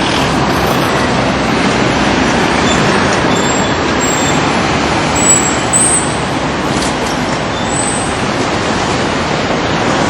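Loud, steady rushing noise of passing vehicles, with a few faint high-pitched squeaks.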